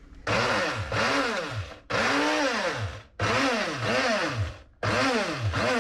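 Mini personal blender run in pulses, four bursts of about a second or more with short gaps, the motor speeding up and slowing within each burst as it chops garlic, parsley and ginger in olive oil into a sauce.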